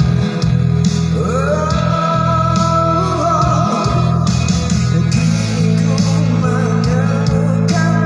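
A man singing a love song over guitar and bass accompaniment: about a second in his voice slides up into a long held note lasting a couple of seconds, followed later by a softer, lower phrase.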